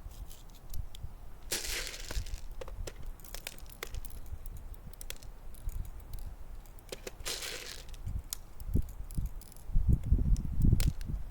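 Scattered handling clicks and rustles of an airsoft pistol and magazine being handled between magazines, with two short hisses and some low bumps near the end.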